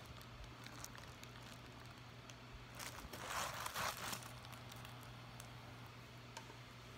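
Quiet room tone with a low steady hum, broken about three seconds in by a second or so of rustling handling noise as the phone recording it is moved and adjusted.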